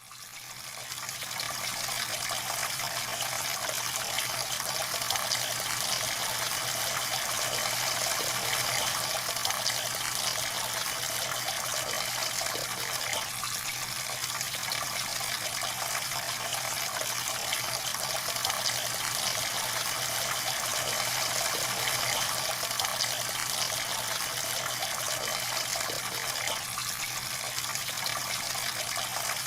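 A jet of water pouring and splashing steadily, fading in over the first second or two.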